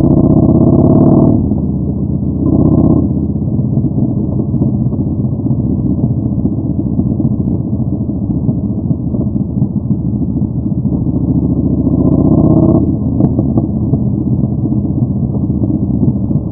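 Yamaha Bolt 950's V-twin running through a Vance & Hines Twin Slash staggered exhaust while riding. The throttle opens in the first second, briefly again about 2.5 seconds in, and for a longer pull around 11 to 13 seconds with the pitch rising; between these it runs at a steady lower note.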